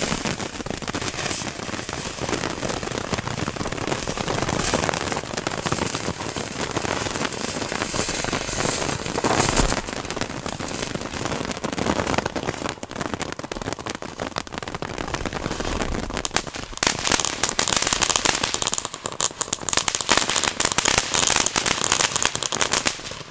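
Lesli fireworks fountains burning on the ground: a steady hiss of spraying sparks with crackling, the crackle growing denser and louder over the last several seconds.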